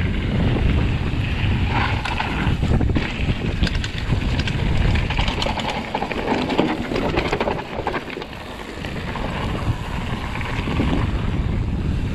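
Wind buffeting the camera microphone over the rattle and tyre noise of a Sonder Signal Ti hardtail mountain bike running fast down a rough gravel trail, with many sharp clicks and knocks from the bike over the bumps.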